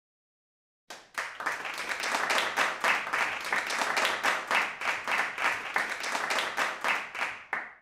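Crowd applause: many hands clapping together, starting suddenly about a second in and cutting off abruptly at the end.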